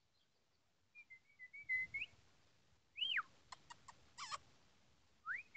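A person whistling to call Labrador puppies. First comes a wavering whistle, then one that rises and falls, then a few short clicks, and near the end a whistle rising in pitch.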